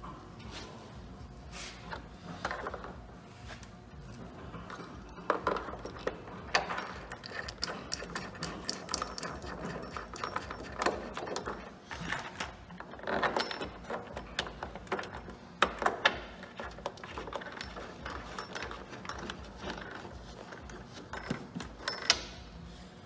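Scattered clicks, rattles and light knocks from hands handling plastic parts and fittings around a truck headlight housing, with a few louder clacks along the way.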